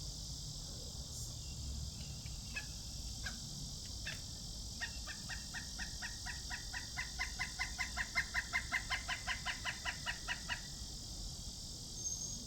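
Pileated woodpecker calling: a few single sharp notes, then a long, even series of loud 'wuk' notes at about four to five a second, which swells and then fades before stopping abruptly. A steady high insect drone runs underneath.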